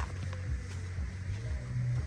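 Background music with a low bass line stepping from note to note.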